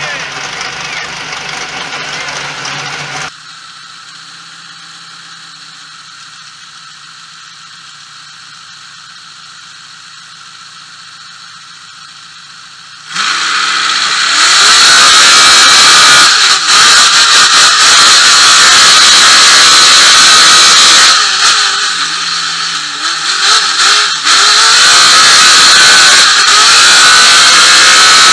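Chevrolet trophy truck engine heard from inside the cab. It runs steady at first, then goes quieter for several seconds. About 13 seconds in it revs hard at the launch into a qualifying lap and carries on at full throttle with loud road and wind noise. About 21 seconds in it briefly eases off and revs back up.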